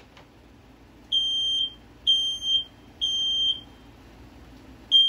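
First Alert 9120B smoke alarm's piezo horn sounding the temporal-three alarm pattern: three high beeps of about half a second each, a pause, then the next cycle starting near the end.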